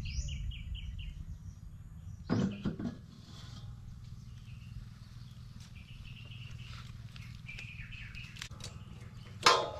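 Birds chirping: a quick run of short, evenly spaced notes at the start, then fainter calls on and off through the rest, over a low steady rumble. A brief clatter about two and a half seconds in and another near the end.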